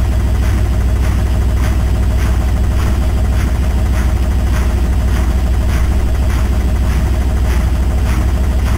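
Indesit WILL85 washing machine in its spin cycle: a steady low drum hum with a swishing wash over it and a regular pulse about two and a half times a second.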